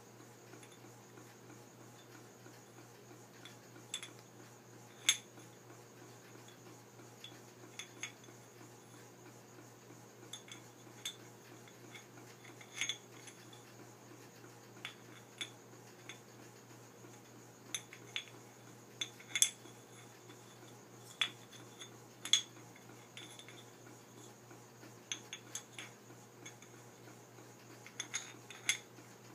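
Two metal ice cream scoops tapping and clinking against each other: a few dozen light metallic clicks, each with a brief ring, spaced irregularly. A faint steady low hum runs underneath.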